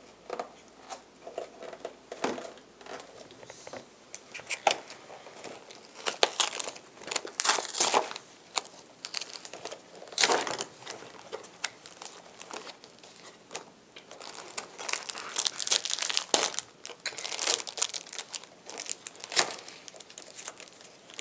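Thin cardboard cookie box being torn open by hand, with the paper wrapping inside crinkling. Irregular rips and crackles come in bouts, busiest in the last third.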